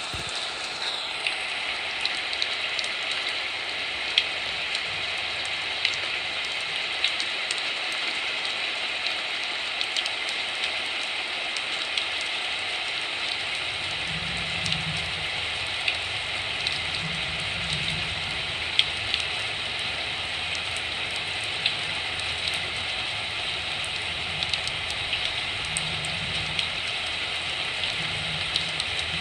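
Heavy typhoon rain falling steadily: a dense hiss with frequent sharp drop impacts and drips. A low, uneven rumble comes in about halfway through.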